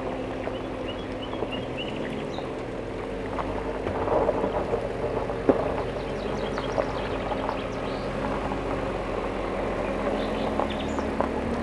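Hyundai Santa Fe SUV driving slowly over gravel: a steady engine hum, with the tyres crunching on loose stones.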